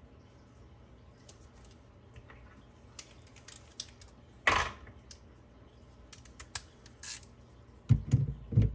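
Scattered small clicks and light scrapes of a wrench and plumbing fittings being handled as faucet supply-line connections under a sink are tightened. There is a louder scrape about halfway through and a few low knocks near the end.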